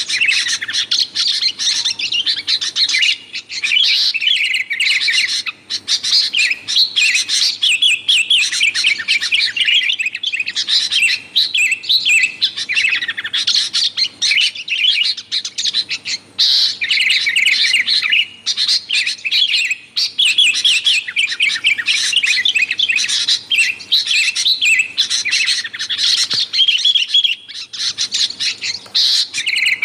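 Sooty-headed bulbuls chattering busily, a dense stream of rapid bright chirps and warbles that barely pauses.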